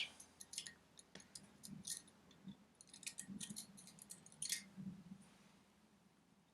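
Faint, scattered light metallic clicks and taps from small parts and tools being handled at a compressed valve spring on the cylinder head. The clicks stop about five seconds in.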